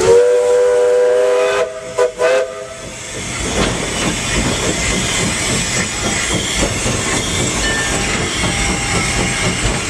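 Steam locomotive chime whistle blowing one long chord of several notes, then two short toots. This is followed by a steady hiss of steam and the locomotive's working noise, which grows louder.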